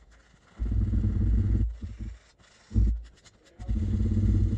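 Hand sanding of a wooden chair part with a sanding sponge: three back-and-forth strokes, the first and last about a second long and a short one between, with brief pauses.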